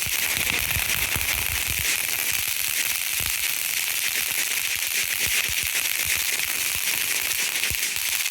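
A lit firework burning with a steady hiss and dense, fast crackling.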